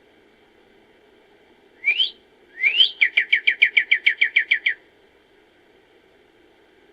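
A songbird singing one phrase: two quick rising whistled notes about two seconds in, then a fast trill of about fourteen falling notes lasting under two seconds, over a faint steady background hiss.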